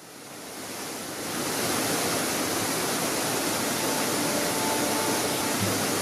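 Steady rush of a large waterfall's falling water, fading in over the first second or so and then holding even. A few faint musical tones enter near the end.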